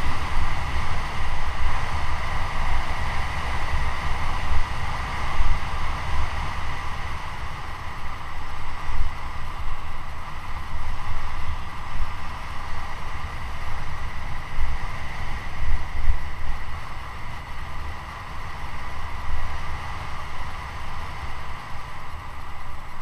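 Wind buffeting the microphone of a camera on a mountain bike descending fast on asphalt, in an uneven low rumble. Under it runs a steady hum from the bike rolling along the road.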